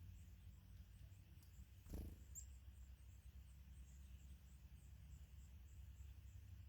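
Near silence: a low rumble throughout, a soft thump about two seconds in, and just after it one brief high chirp from a small bird. A faint, regular high ticking runs under it, about three ticks a second.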